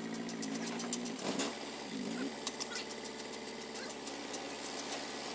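Diesel engine of a crane truck idling steadily, with its pitch dipping briefly and coming back about two seconds in, and a rapid ticking over the top.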